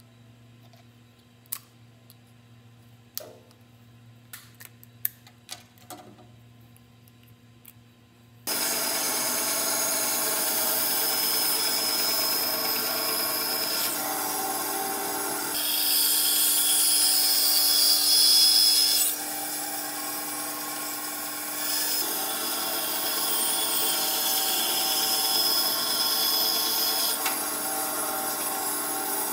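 Sharp plastic clicks and snaps as the dome of an LED bulb is pried off with pliers and a screwdriver. About eight seconds in, a bandsaw starts abruptly, running steadily and cutting through a wooden board. It is loudest for a few seconds in the middle, while the blade is in the wood.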